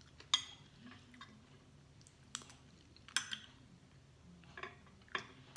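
Close-up chewing and mouth sounds of someone eating a mouthful of rice and milkfish. A few sharp clicks of a spoon and fork against the plate are spread through it.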